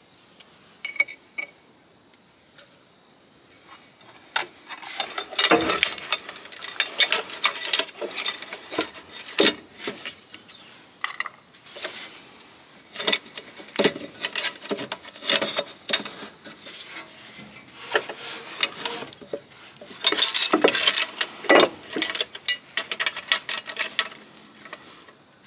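Metal parts clinking, knocking and scraping as a tip turbine fan is worked by hand onto its mount among hoses and clamps, in irregular clusters. A few faint clicks come first; the handling turns busy and louder about four seconds in.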